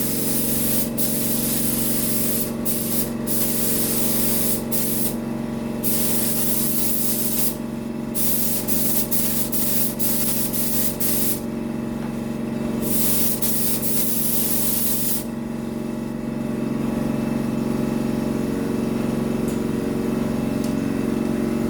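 Paint spray gun hissing as it lays down a coat of base colour, in trigger pulls broken by short pauses; the spraying stops about fifteen seconds in. A steady machine hum runs underneath throughout.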